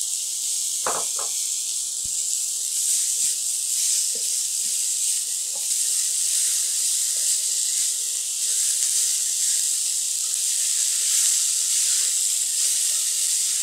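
Julienned carrots, spring onions and bell pepper strips sizzling in hot oil in a stainless-steel wok, a steady hiss as they stir-fry. A couple of light knocks about a second in.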